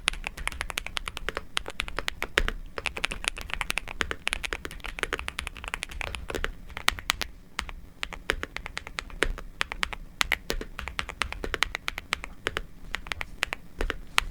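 Typing on a Nuphy Gem 80 mechanical keyboard: a rapid, continuous stream of keystrokes with a brief lull about halfway through.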